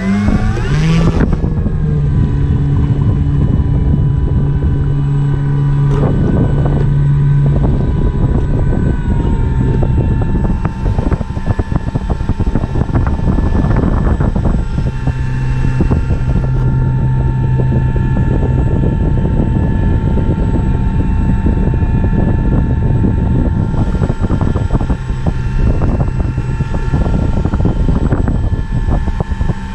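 The electric motor and propeller of an RC Carbon-Z Cessna 150 floatplane, heard from on board, spool up quickly at the start and then run at a steady whine as the plane taxis on the water. The whine is layered over the rush of water under the floats, and its pitch drops slightly about ten seconds in.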